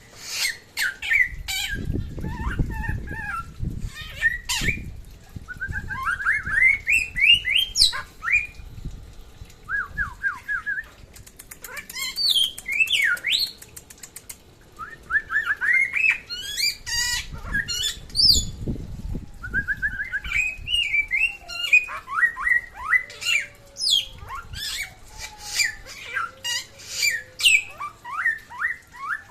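A caged songbird singing in repeated phrases of quick, rapidly rising chirps, with sharp high notes between phrases. Low rumbling noise comes in twice, at about 2 s and about 16 s.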